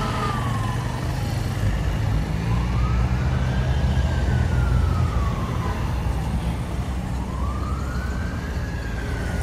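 Fire engine siren wailing in slow rises and falls, about one cycle every four to five seconds, over the steady rumble of passing cars and motorcycles.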